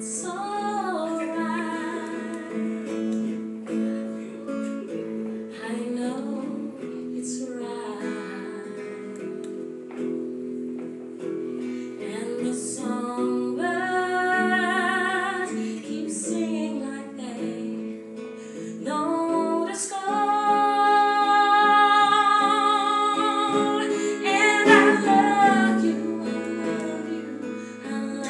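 A woman singing a slow song with long held, wavering notes, over acoustic guitar accompaniment.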